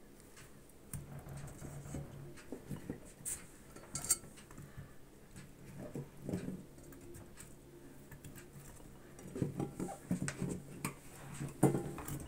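Peeled raw potato chunks being placed by hand into an aluminium Afghan kazan, giving irregular soft knocks of potato against potato and the pot, with the clatter of a ceramic bowl. The knocks come thicker towards the end, with the loudest one shortly before it ends.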